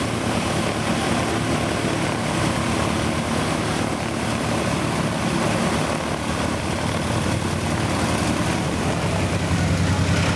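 Twin piston engines of a Dornier Do 28 Skyservant running steadily at low power on the ground, a deep even propeller drone that grows a little louder near the end.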